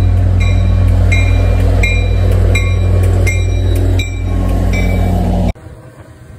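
Metro-North F40PH diesel locomotive and its train passing close by, a steady low engine drone with a bell ringing about every 0.7 seconds over it. Near the end the sound cuts off abruptly to a much quieter background.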